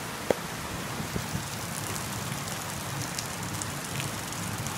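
Heavy rain falling steadily, with one sharp click a moment after the start and faint drip ticks scattered through it.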